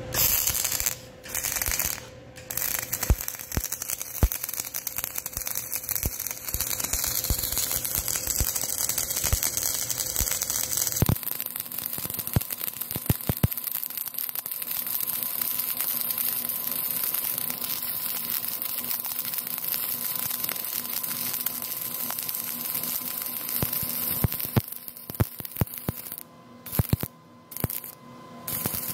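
MIG welding arc crackling and spitting as the wire feeds into a wide 10 mm gap in steel plate. It starts with two short bursts, then runs steadily, and breaks into short stop-start bursts near the end.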